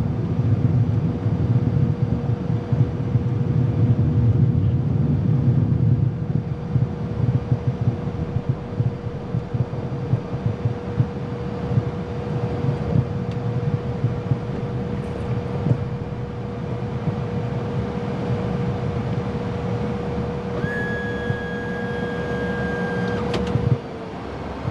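Cockpit noise of a Citation CJ3+ business jet taxiing at low power: a steady low rumble from its twin turbofan engines with a constant hum over it. Near the end a higher steady tone sounds for a couple of seconds, then a click and the rumble drops.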